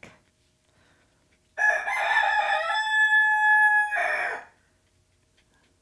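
A rooster crowing once, about three seconds long, ending in a long held note.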